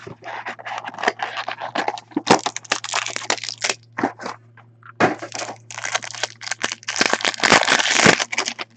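Foil trading-card pack wrappers crinkled and torn open by hand: runs of crackling, rustling rips, with a short lull about four seconds in.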